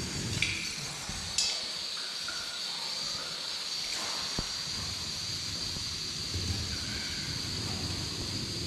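Portable gas stove burner burning with a steady hiss, with a few light clicks and knocks of cookware over it.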